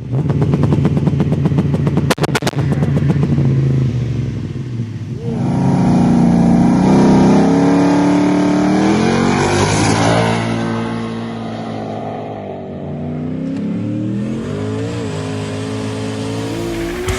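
Turbocharged 427 V8 of a 4WD Chevy Silverado street truck. Its first few seconds are a choppy rev with rapid crackles, then it pulls hard, the engine note climbing and stepping up in pitch several times, with a thin high whine over it.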